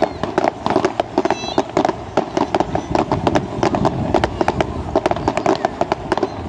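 Fireworks display firing: a dense, irregular run of sharp bangs and crackles, several a second, as a row of small shells bursts together.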